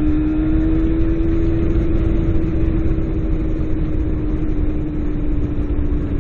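Motorcycle engine running steadily under way, its note rising slightly and then slowly easing off, with a heavy low rumble of wind and road noise.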